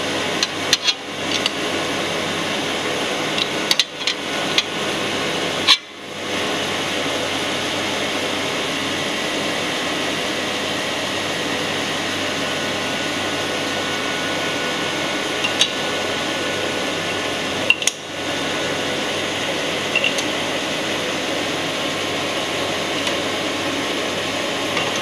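Sharp metallic clicks and knocks from a crankshaft grinder's workhead chuck as its clamps are loosened, the crank throw adjusted for runout, and the clamps tightened again with a T-handle wrench, most of them in the first six seconds. Under them runs a steady machine hum.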